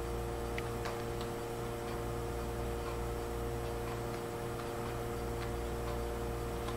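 Steady electrical hum with a few faint scattered ticks.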